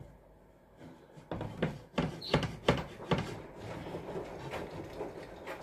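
A knife sawing through a thick sponge cake on a plate, with a run of sharp clicks and knocks between about one and three seconds in, then softer scraping.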